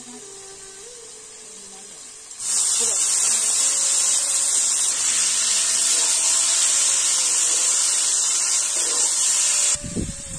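Raw mutton pieces in spice paste sizzling loudly in hot oil in a wok over a wood fire. The steady hiss starts suddenly about two seconds in and stops abruptly about a second before the end.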